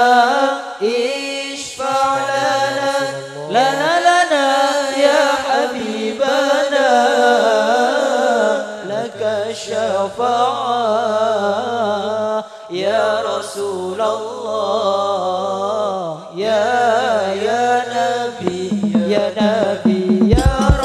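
Sholawat, Arabic devotional singing in praise of the Prophet: a voice sings long, ornamented lines over low held accompanying notes, and drum beats come in near the end.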